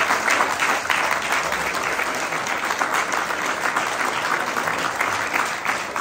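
A small crowd applauding, with many hands clapping densely and steadily.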